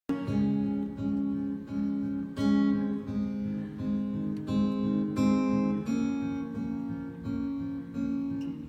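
Acoustic guitar strumming chords in a steady rhythm, with no singing yet.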